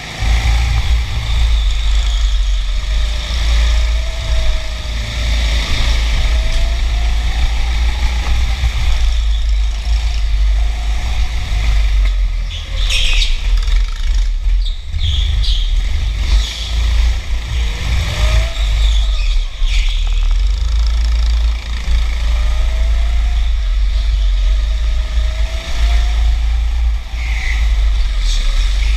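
A go-kart's motor, heard from on board while driving, its pitch rising and falling again and again as the kart speeds up and slows for the turns, over a heavy low rumble. A few brief high scraping bursts come a little before the middle.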